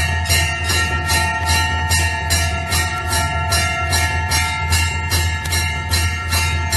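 Temple bell rung rapidly and evenly, about three or four strokes a second, its metallic ringing tones sustained between strokes, over a steady low hum.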